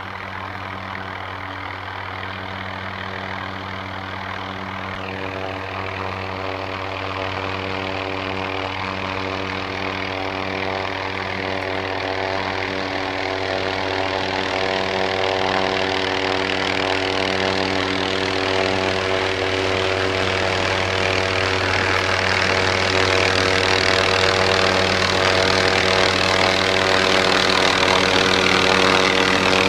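Helicopter approaching, its rotor and engine drone growing steadily louder as it closes in overhead.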